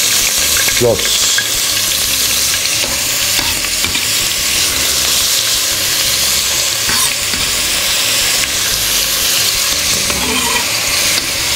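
Chopped onions sizzling in hot oil in a steel pot, a loud, steady frying hiss. It starts as they go in, a sign the oil is hot.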